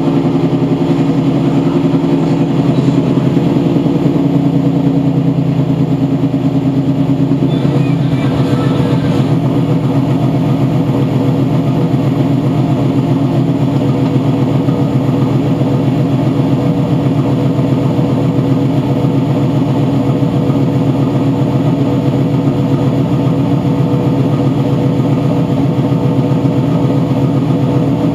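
A 1994 Camaro Z28's LT1 350 small-block V8 idling steadily through its exhaust, shortly after a cold start.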